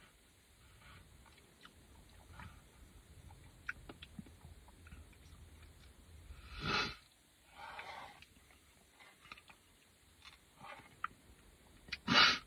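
Faint sipping of a milkshake through a plastic straw, with small mouth and swallowing clicks, and a louder short breath about seven seconds in and another near the end.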